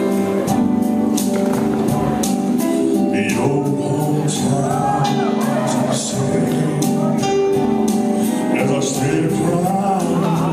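Live band music: keyboard and guitar accompanying a lead performer at the microphone, playing a continuous melody of held notes.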